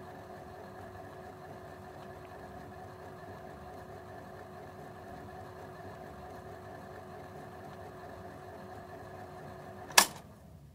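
Electric typewriter's motor running close up with a steady hum, then switched off with one sharp click near the end, after which the hum dies away.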